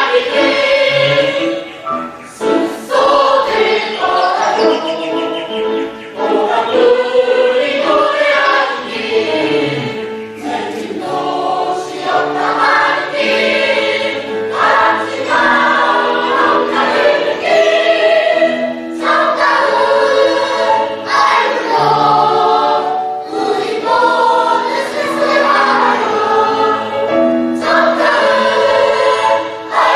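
A family choir singing a song together, phrase after phrase, with short breaths between phrases over steady low accompanying notes.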